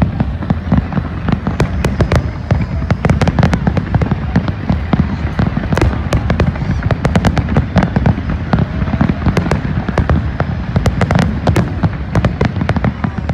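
Fireworks barrage: many sharp cracks and bangs in quick, overlapping succession over a continuous low rumble.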